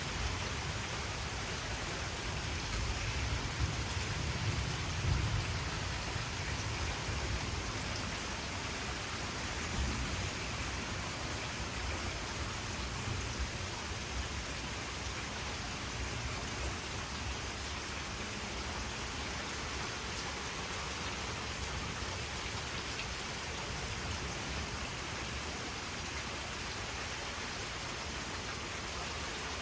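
Heavy, steady rain pouring down in a thunderstorm, with thunder rumbling low in the first several seconds before the rain carries on alone.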